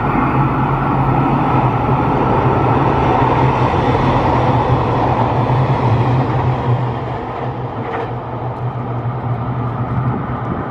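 JR Shikoku 2700 series three-car diesel multiple unit passing through a station at speed: a steady diesel engine hum under loud wheel-and-rail running noise. The noise is loudest a few seconds in and eases off after about seven seconds.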